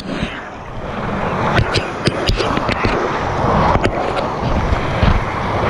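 Whitewater rapids rushing loudly around a kayak, with paddle strokes splashing and many short, sharp spatters of spray through the rush.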